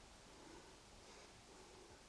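Near silence: only a faint, even background hiss.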